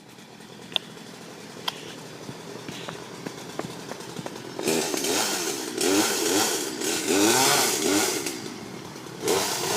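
Chainsaw running as it cuts into a tree, low and steady at first, then from about four and a half seconds in much louder, its pitch rising and falling repeatedly as the engine revs and labours in the cut.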